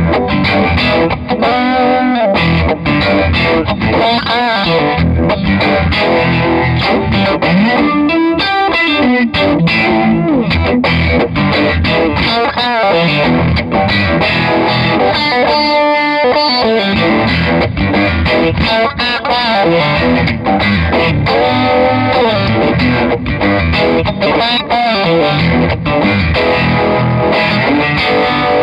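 Electric guitar, a Fender American Stratocaster, playing chords and fills through an RFO Electronics Waterfall four-phase chorus/vibrato pedal and a Barber Electronics Direct Drive overdrive. The notes waver steadily in the classic Uni-Vibe way, with light distortion.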